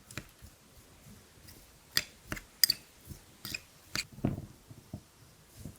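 A spoon stirring finely chopped small onions mixed with powdered palm sugar candy, giving a series of irregular clicks and taps as it knocks and scrapes through the sticky mixture.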